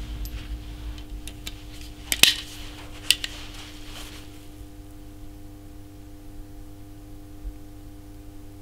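A few sharp metallic clicks and clacks from a Chiappa Little Badger .22 LR single-shot rifle being handled between shots. The loudest click comes a little over two seconds in.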